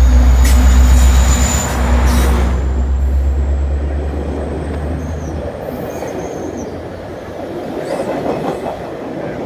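GO Transit MP40PH-3C diesel locomotive passing close by, its engine a heavy low rumble that is loudest in the first two seconds and fades away after about five. Its bilevel coaches then roll past with steady wheel-on-rail noise, a few brief high wheel squeals, and clicks over the rail joints near the end.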